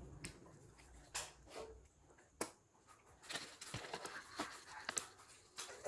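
Faint crunching and clicking of someone biting into and chewing crispy fried chicken: a few scattered crunches at first, then a busier run of them from about three seconds in.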